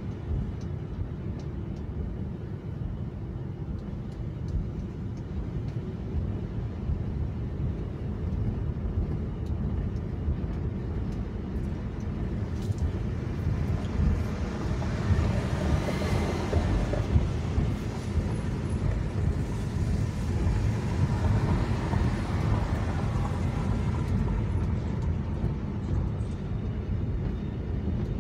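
Steady low rumble of a car's engine and tyres while driving on city streets, heard from inside the cabin. About halfway through, a louder, hissier road noise swells for several seconds and then eases back.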